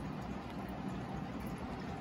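An aquarium's pump and filter running: steady water-circulation noise over a low hum.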